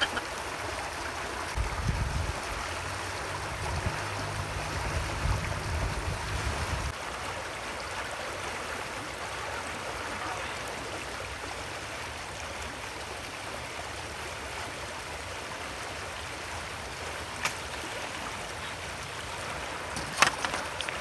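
Shallow river rushing over rocks: a steady wash of flowing water. A low rumble runs under it from about two to seven seconds in, and two sharp clicks come near the end.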